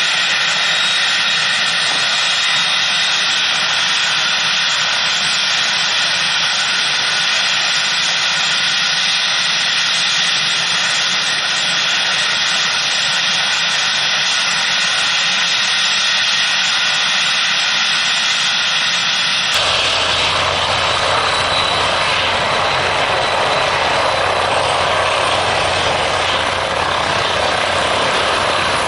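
An Airbus ACH145 (H145 D3) five-bladed helicopter, its twin turboshaft engines running and the rotor turning on the ground: a steady turbine whine with a strong high tone. About two-thirds of the way through, the sound changes abruptly to a fuller, deeper rotor and fenestron sound, and near the end the helicopter is lifting into a low hover.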